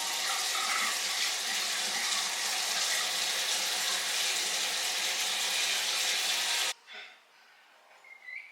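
Sink tap running, a steady rush of water that shuts off suddenly about seven seconds in.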